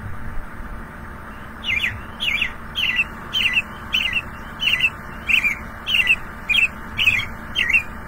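American robin singing: a string of about eleven short, clear whistled phrases, a little under two a second, beginning about two seconds in. This is the robin's 'cheerily, cheer up' song.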